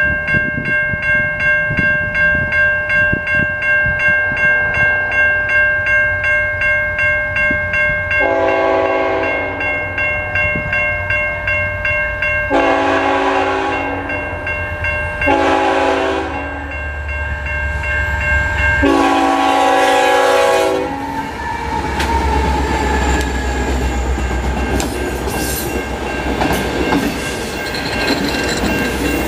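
Grade-crossing warning bell ringing steadily. About a third of the way in, the lead diesel locomotive, a CN ET44AC, sounds its horn in four blasts for the crossing. The locomotives' diesel engines then rumble past, followed by the rolling clickety-clack of the freight cars' wheels on the rails.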